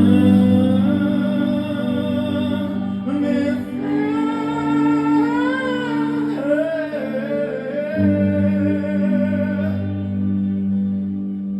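Live pop-rock ballad: a male voice holds a long, bending wordless vocal line over sustained chords with guitar, and the music fades toward the end.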